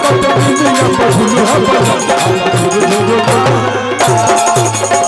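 Live Bhojpuri folk stage band playing an instrumental passage: a fast, steady hand-drum rhythm under sustained melody notes.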